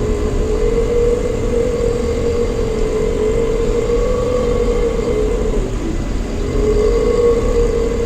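Long, drawn-out burps after chugging a Pepsi, held for seconds at a time with a wavering pitch and a short break about six seconds in. A steady low rumble runs underneath.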